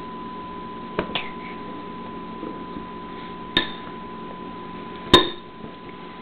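A spoon clinking against a dish: two quick clinks about a second in, another midway, and a louder ringing one near the end.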